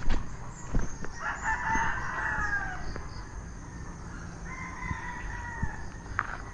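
A rooster crowing twice, the first crow about a second in and a second, fainter crow about halfway through, over the crunch of footsteps in grass.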